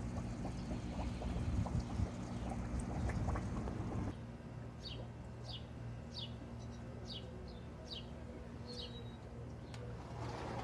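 A small bird chirping: about seven short, high chirps, each falling in pitch, in the second half. Before them a low rumbling noise stops abruptly about four seconds in.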